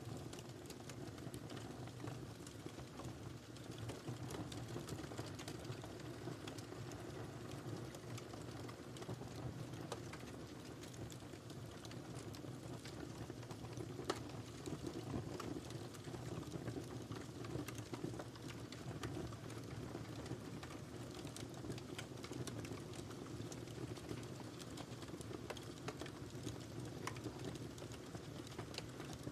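Wood fire burning in a fireplace, crackling steadily with scattered small pops and one sharper pop about halfway through, over a low rumble of the flames.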